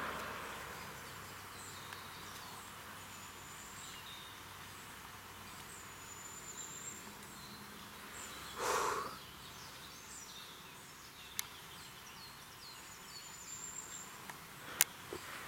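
Quiet forest ambience with birds chirping faintly here and there. A short rush of noise comes about nine seconds in, and a couple of sharp clicks follow later.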